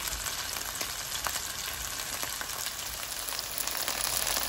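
Chicken pieces sizzling in hot sesame oil in a pan over a high flame, a steady hiss with many small crackling pops as they brown. It grows slightly louder in the last second.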